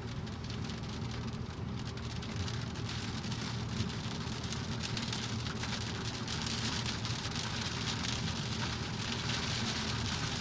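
Heavy rain falling during a thunderstorm: a steady dense hiss of drops, a little heavier in the second half, over a low rumble.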